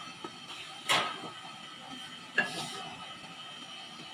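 A wooden spoon stirring thick, bubbling gravy in a metal pot, with a faint simmering hiss and two sharp knocks of the spoon against the pot, about a second in and again about two and a half seconds in.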